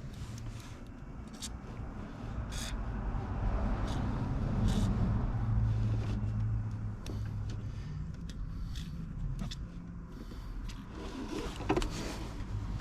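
Seat belt webbing and retractor being handled and wiped clean, with scattered light clicks and a stretch of rubbing about four to six seconds in, over a steady low hum.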